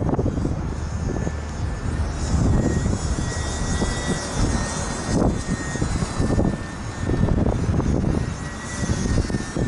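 Thin, steady whine of the E-flite UMX Beast 3D ultra-micro plane's electric motor and propeller in flight, under heavy gusts of wind buffeting the microphone.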